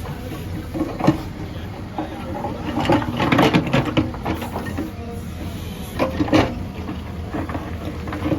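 Backhoe loader's diesel engine running steadily, with bursts of clattering and knocking about a second in, a longer run of clatter around the middle, and again near the end, as the machine works stone.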